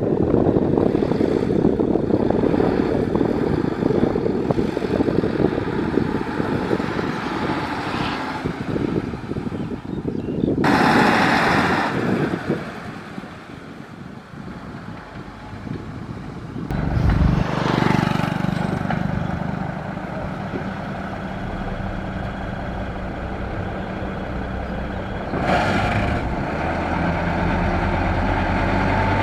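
Heavy diesel construction vehicles running. The sound changes abruptly several times, and from about halfway through a steady engine hum holds.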